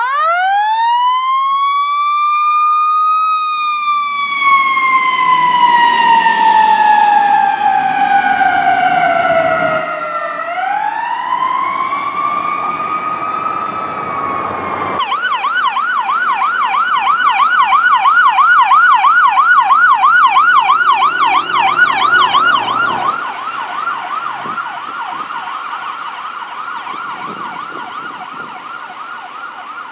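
Fire truck siren wailing: it winds up quickly, coasts slowly down in pitch and winds up again. About halfway through it switches abruptly to a fast yelp, which grows fainter near the end as the truck moves off.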